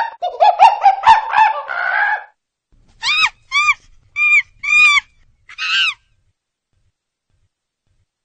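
A bird calling: a quick run of overlapping calls for about two seconds, then five separate, higher calls that rise and fall in pitch.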